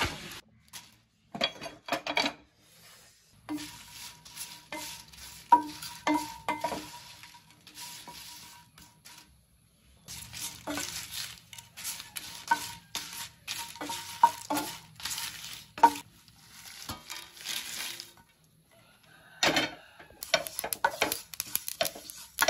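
Wooden spatula scraping and knocking against a frying pan as dried red chillies and curry leaves are stirred and dry-roasted, and near the end sesame seeds are stirred and toasted. The strokes are irregular, and some knocks leave a short ring from the pan.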